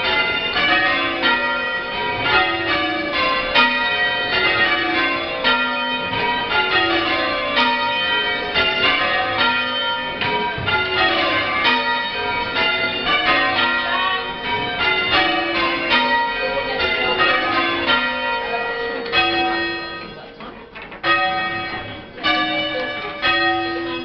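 A ring of church bells rung full circle from the ropes in change ringing: an even, rapid succession of overlapping bell strikes at different pitches. About nineteen seconds in, the strikes thin out to a few separate, spaced strokes.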